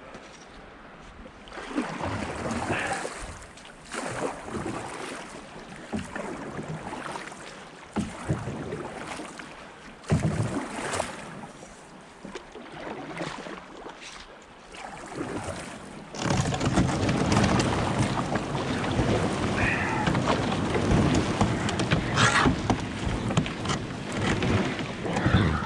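Open canoe being paddled on a brook: paddle strokes swish and splash about every two seconds, a few with a sharper knock. About two-thirds of the way in, a louder continuous rush of moving water and wind on the microphone takes over as the canoe runs a shallow riffle.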